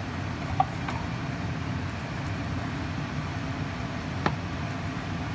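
A spoon stirring thick sauce in a stainless steel saucepan, with a few light clicks against the pan, over a steady low rumble.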